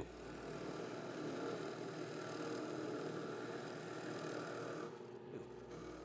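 Drill press running steadily as its large bit bores a centred hole through a cedar blank; the sound falls away about five seconds in.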